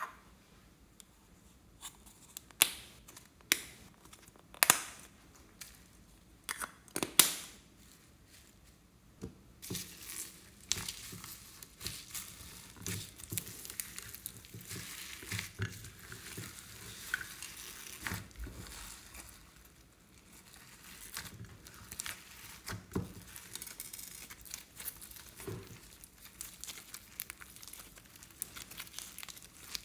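Slime being squeezed and mixed by hand with foam beads and fishbowl beads in a glass tray. There are a few sharp taps during the first few seconds, then from about ten seconds in a continuous crackling and crinkling squish.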